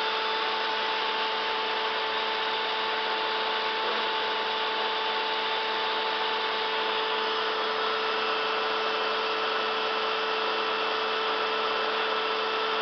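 Copy turning lathe running, its motor and gearing giving a steady whirring whine made of several fixed tones; one of the higher tones drops out about halfway through.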